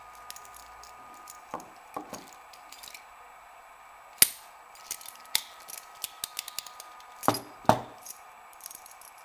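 Metal lever padlock and key being handled, clicking and clinking: one sharp click about four seconds in, a run of light ticks, then two heavier knocks.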